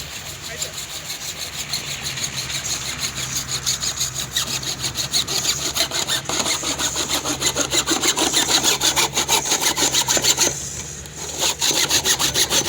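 Hand saw cutting plastic drainage pipe with quick, even back-and-forth strokes, about five a second, growing louder, with a short break about ten seconds in before the sawing resumes.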